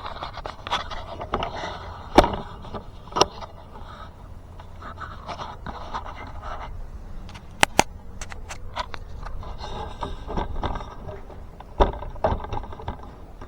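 Scraping and handling noises with scattered sharp clicks and knocks at irregular intervals, the loudest about two seconds in, near the middle and near the end.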